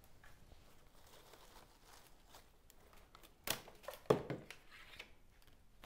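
Leafy lemon leaf stems rustling and crackling as they are handled, with two louder rustles a little past the middle.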